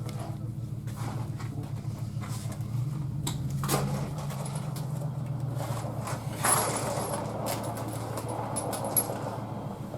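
A motor runs with a steady low hum that steps up in pitch about three seconds in, with a few sharp knocks and some clatter over it, the loudest about six and a half seconds in and another near nine seconds.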